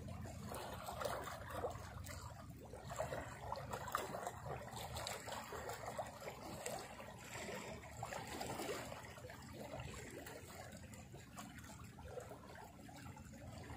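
Gentle seawater lapping and trickling among flat shoreline rocks, in small irregular splashes.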